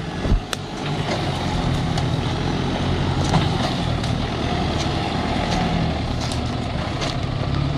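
Engines of a tractor and a Toyota Hilux Surf running steadily under load as the tractor tows the Surf out of deep mud, a low even drone.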